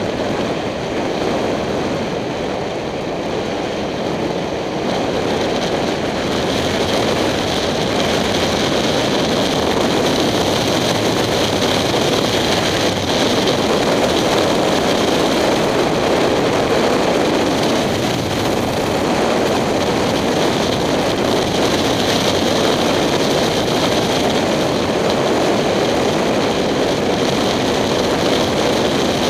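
Motorcycle riding at road speed heard from a helmet camera: a steady rush of wind over the helmet-mounted microphone, with the 2007 Kawasaki Ninja 250's parallel-twin engine running beneath it. The rush grows louder about six seconds in and then holds steady.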